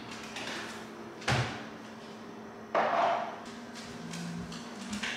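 Two sudden knocks about a second and a half apart, the first with a low thump, over a faint steady hum.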